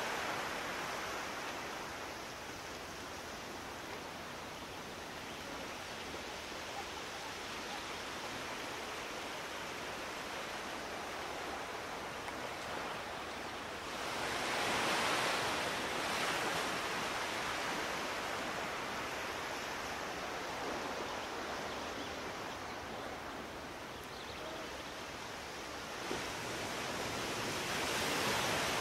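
Steady rush of distant ocean surf, swelling louder about halfway through and again near the end.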